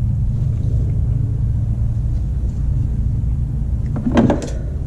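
Steady low mechanical rumble of a machine running, with a brief sharp higher sound about four seconds in.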